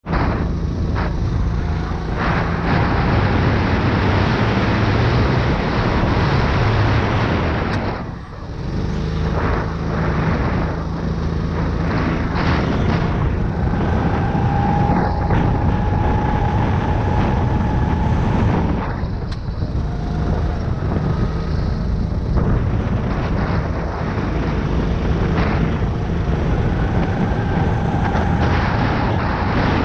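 Go-kart engine running hard, heard from on board the kart over a steady rushing noise, its sound dropping away briefly about eight seconds in and again about nineteen seconds in as the driver lifts off for corners.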